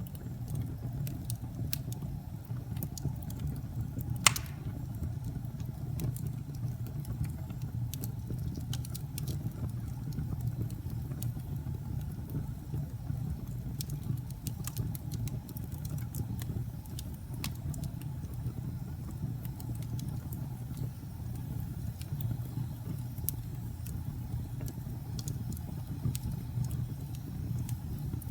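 Wood fire burning in a fireplace: a steady low roar of the flames with scattered light crackles and pops, and one louder pop about four seconds in.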